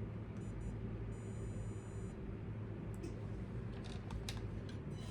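Micro RC crawler's electric motor driving a newly fitted aluminum transmission on a bench test, with a high-pitched whine in short spells and a few clicks about three to four and a half seconds in.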